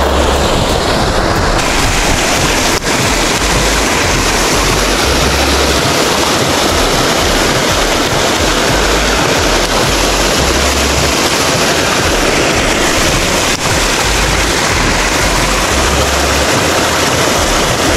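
Loud, steady rushing noise with no distinct events.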